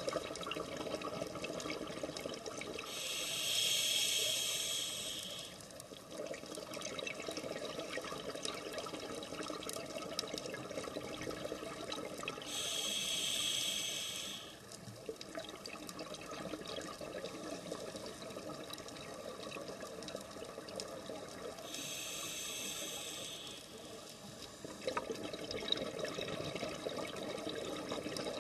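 A scuba diver breathing through a regulator underwater: three hissing breaths, each about two seconds long and roughly nine seconds apart, with a steady bubbling rush between them.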